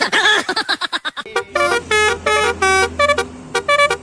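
Telolet bus horn playing a quick tune of short notes that step up and down in pitch, starting about a second and a half in, over a steady low hum.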